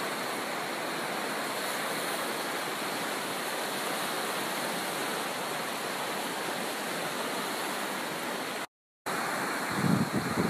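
A shallow stream rushing over rocks into a lake: a steady, even rush of water. After a short break near the end, a new shot begins with a gusty low rumble of wind on the microphone over small waves lapping.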